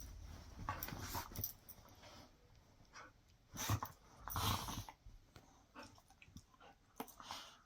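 Dogs scuffling and moving about on a bed: a run of faint, irregular short noises, louder about a second in and again around four to five seconds in.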